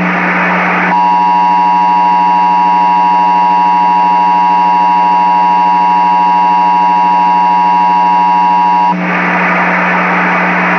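Emergency Alert System test broadcast audio: a steady electronic tone over a low buzz. The tone gives way to hiss for about the first second and again from about nine seconds in, while the buzz carries on.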